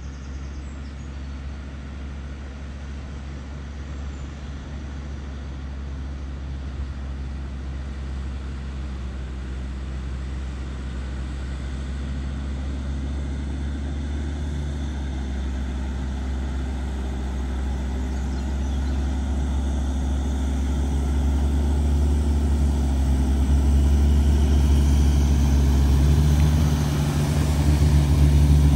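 Land Rover Discovery's engine running as it wades through deep floodwater, growing steadily louder as it approaches, with water surging around its wheels near the end.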